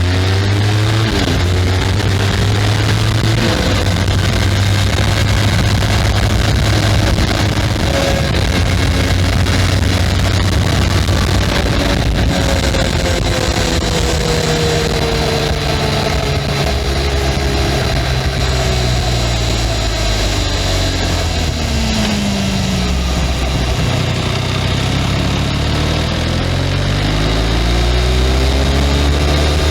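Benelli 502C's 500 cc parallel-twin engine through its stock exhaust, running under way, the note stepping up and down as the revs change. About two-thirds of the way through the engine note falls away, then climbs again.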